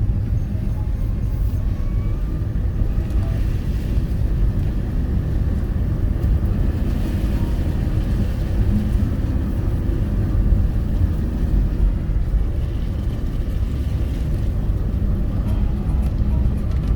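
Car's engine and tyres on the road as heard inside the cabin: a steady low rumble that goes on evenly.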